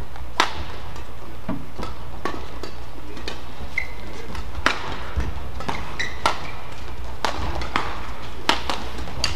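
Badminton rally: sharp, short cracks of rackets striking the shuttlecock back and forth, mixed with footfalls on the court and a brief shoe squeak about four seconds in, over a steady low hum of the hall.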